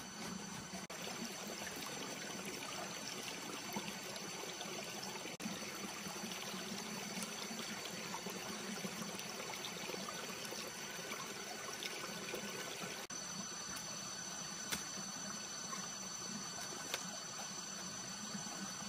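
Steady rushing of running water, with a faint, steady high insect whine over it and a few light clicks.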